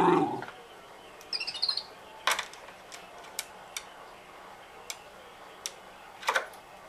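A dachshund's whine sliding down in pitch dies away about half a second in. A Zhu Zhu pet toy hamster then gives a brief high electronic chirping, followed by scattered sharp clicks as the puppy's paws and claws strike the plastic laundry basket.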